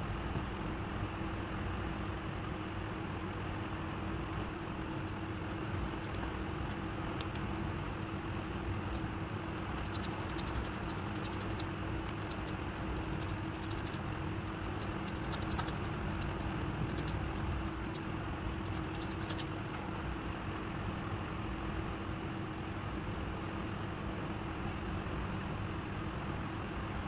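A steady background hum with a faint steady tone. Between about 6 and 19 seconds, light scratchy ticks come as fingers rub and fluff a thread tassel against newspaper.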